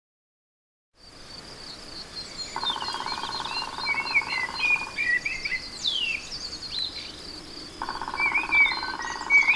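A common blackbird sings fluted, warbling phrases over two fast drum rolls of a black woodpecker hammering a tree trunk. Each roll lasts about two seconds. A steady high trill runs behind, and the sound fades in after a second of silence.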